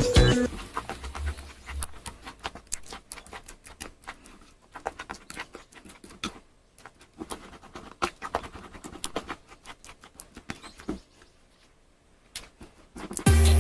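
Sticky slime being squished and pulled by hand: an irregular run of small wet clicks and pops that thins out near the end.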